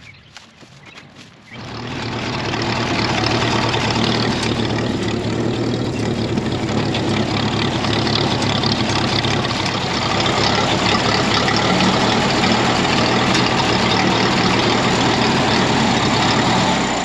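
An engine running steadily, loud and even, building up about a second and a half in and dropping away near the end.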